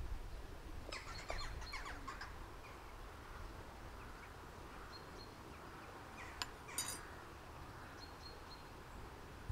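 A metal spoon scooping ground coffee into a portable espresso maker: soft scrapes and clicks about a second in, and two sharp clicks a little past the middle. Birds chirp faintly over a low outdoor rumble.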